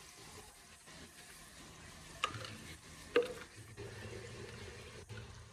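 Food frying quietly in a pan over a wood fire, with light rustling of handled plastic and two sharp clicks, about two and three seconds in.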